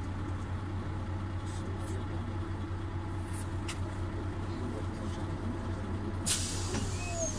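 Cabin noise inside a Volvo city bus: the engine's steady low hum with light rattles. About six seconds in there is a short, loud hiss.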